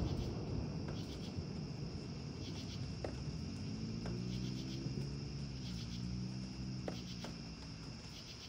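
Crickets chirping steadily in pulsed trills, with a few faint, distant sharp pops and a low hum that swells and fades in the middle.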